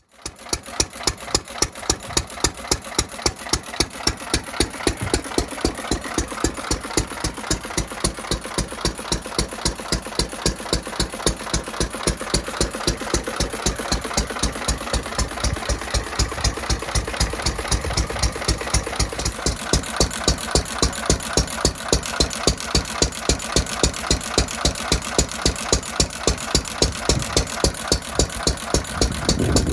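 Early-1940s Bradford 3 hp enclosed-crank horizontal petrol stationary engine running steadily at around 400 rpm under its throttle governor, with a regular exhaust beat of about three a second.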